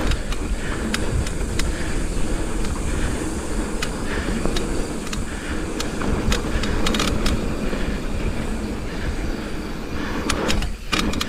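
Mountain bike rolling fast down a dirt trail: a steady rush of wind on the microphone and tyre noise, with scattered rattling clicks from the bike over bumps. Near the end the noise briefly drops away as the bike is airborne off a jump, then comes back on landing.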